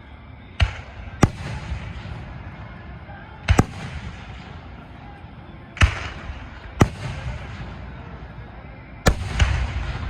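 Aerial fireworks exploding: about seven sharp bangs at irregular intervals, some in quick pairs, each trailed by a low rumbling echo.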